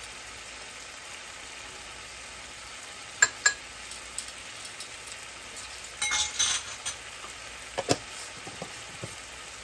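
A steady low sizzling hiss from cooking on the stovetop. Over it, a spoon clinks against a dish in short clusters about three, six and eight seconds in, as when stirring cornstarch into water.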